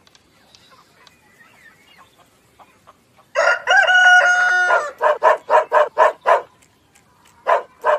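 Rooster crowing once about three seconds in, a pitched call with a rising then falling glide, followed by a quick run of short, loud clucks, with two more near the end.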